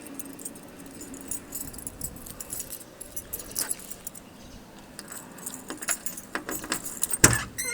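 A ring of keys jangling with small metallic clicks as a key is worked in a car's trunk lock, with a louder clunk near the end.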